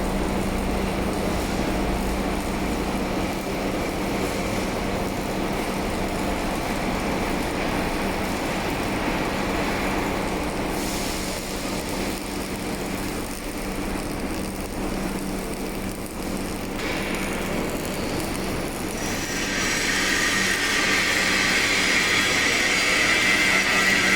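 Automatic pipe welding machine and welding equipment running with a steady low hum and a rough mechanical noise. About 19 seconds in it gets louder, with a sharper hiss.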